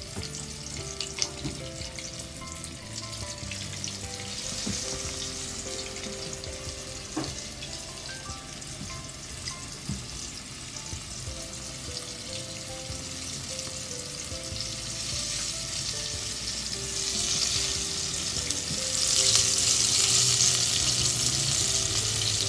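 Battered chicken pieces deep-frying in a pot of hot oil, a steady sizzle that grows louder near the end.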